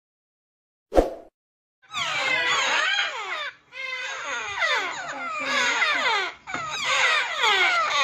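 A single sharp click about a second in, then a brood of Congo African grey parrot chicks calling together: many short, falling squeaky calls overlapping, with two brief breaks.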